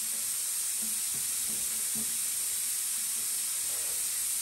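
A steady hiss, strongest in the high range, with a few faint short low sounds beneath it.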